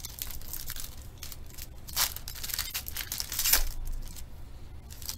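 Foil trading-card pack being slit and torn open, its wrapper crinkling, with the loudest rips about two seconds in and around three and a half seconds.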